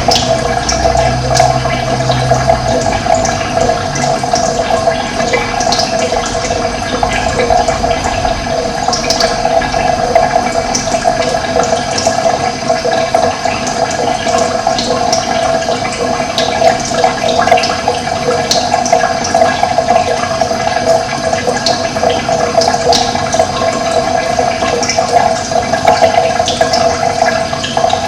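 Running water flowing steadily, with short high bird chirps scattered throughout. A low rumble sits under it for the first few seconds.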